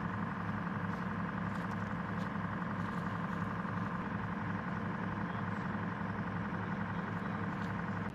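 LAV-25 light armored vehicle's Detroit Diesel 6V53 two-stroke V6 diesel idling steadily.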